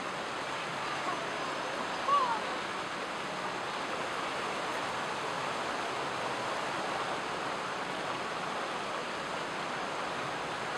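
Steady murmur of a shopping mall crowd, many voices blurred into an even hubbub. One brief higher cry stands out about two seconds in.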